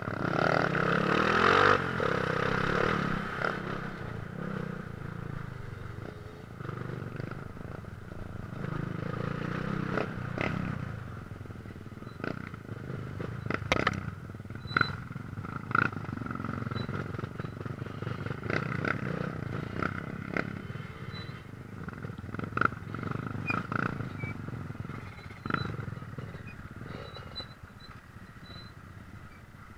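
Dirt bike engine running at low, uneven revs on a rough trail, revving up briefly about a second in, with scattered knocks and rattles from the bike jolting over rocks and ruts.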